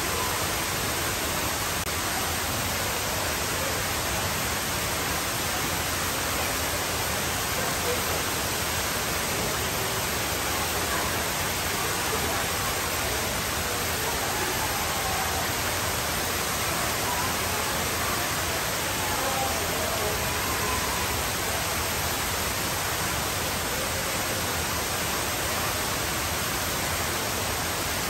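Tall indoor waterfall: a sheet of water falling from a great height in a steady, even rush. Faint voices are heard under it.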